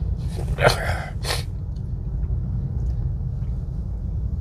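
A man coughing, two sharp coughs in the first second and a half, over a steady low rumble. The coughs come from an illness he is suffering from.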